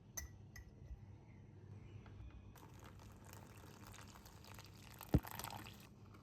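Liquid pouring for about three seconds, starting a couple of seconds in, with a single dull thud near the end; a few light clicks just before.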